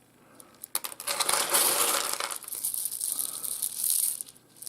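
Small pieces of rough opal clinking and clattering against one another as they are moved by hand: scattered clicks, then a dense rattle in the middle, then more clicks.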